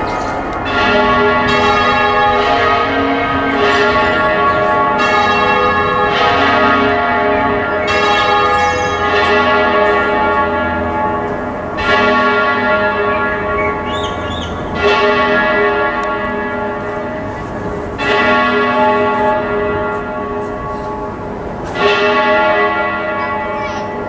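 The ring of thirteen church bells of Liverpool Cathedral, with a tenor of 82 cwt in A♭, being rung full circle. The bells strike one after another over a continuous overlapping hum. In the second half, heavier strikes stand out every three seconds or so.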